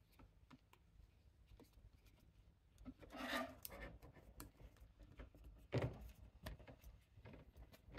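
Faint handling of small parts as a model railway lantern is screwed onto a track switch, with light clicks, a short scraping rub about three seconds in and a sharp knock near six seconds.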